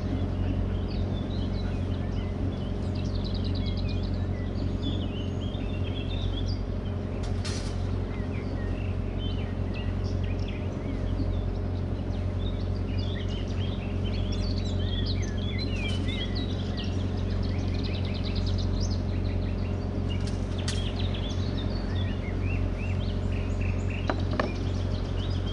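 Boat's engine running with a steady low hum as the boat cruises, with songbirds chirping and singing over it throughout.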